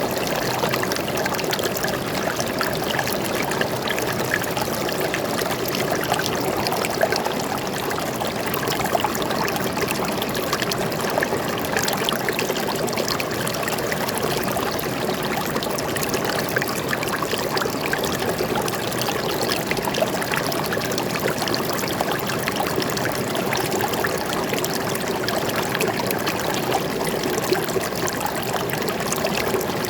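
Flowing water running steadily, a constant splashing trickle with no pauses.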